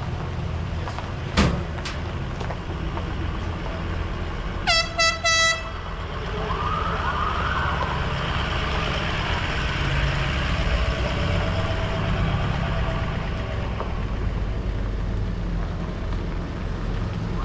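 Emergency vehicles passing slowly on a gravel road, with engine and tyre noise throughout. About five seconds in come three short air-horn blasts, then a brief rising-and-falling siren wail. A single sharp snap sounds about a second in.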